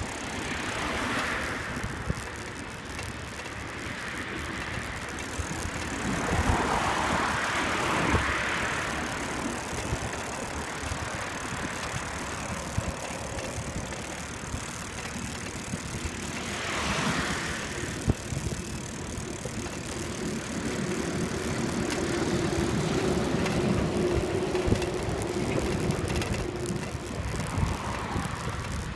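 Bicycle rolling along a paved cycle path: steady tyre and wind noise with small rattles and clicks from the bike, and traffic on the road alongside passing in a few swelling whooshes. About two-thirds of the way through, a steady droning tone sets in for several seconds.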